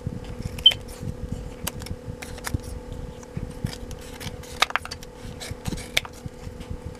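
Freshly sharpened scissors snipping through thin cardboard battery-package backing, in irregular sharp snips, as a test of the new edge. A small axial muffin fan hums steadily underneath.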